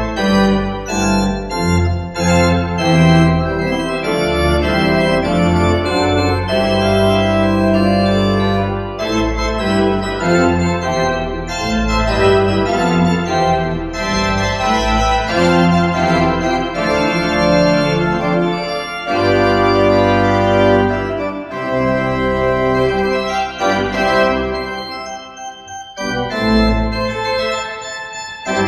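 Church pipe organ being played: full chords and moving melodic lines over sustained deep bass notes, with a brief lull near the end.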